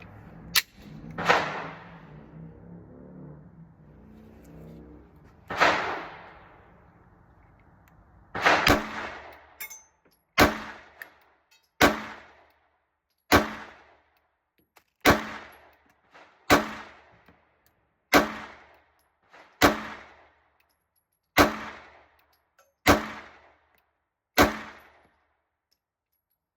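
Stoeger STR-9 MC 9mm pistol firing Aguila 124-grain rounds as a string of single shots, each with a short echoing tail. The first few come irregularly; from about ten seconds in they come evenly, about one every second and a half.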